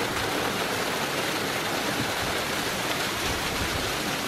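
Small mountain waterfall pouring steadily onto rocks and over a man showering under it.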